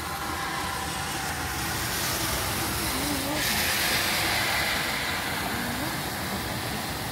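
A car driving through deep floodwater on the road, its tyres hissing and throwing up spray. The sound swells to its loudest about halfway through, then fades as the car passes.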